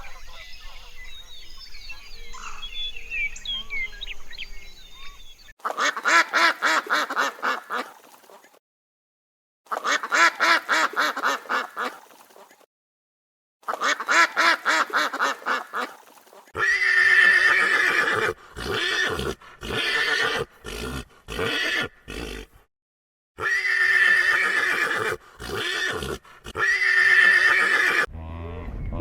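An animal's whinny-like calls, rapidly quavering and pitched, repeated several times with abrupt cuts to dead silence between them. They begin about five seconds in, after faint outdoor ambience with small chirps.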